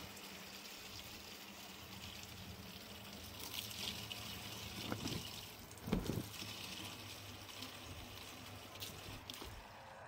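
Water trickling and pouring, with a low knock about six seconds in.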